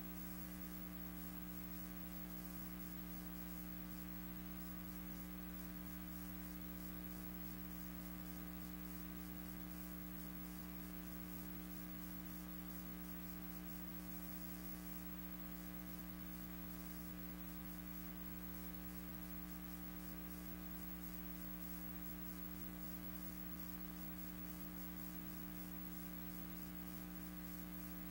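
Steady electrical hum with a layer of hiss, unchanging throughout: noise on an otherwise silent film soundtrack.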